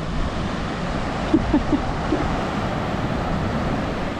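Ocean surf breaking on a beach, with wind on the microphone, a steady rushing noise. A few short, faint pitched sounds come about a second and a half in.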